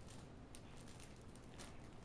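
Near silence: faint room hum with two or three faint ticks.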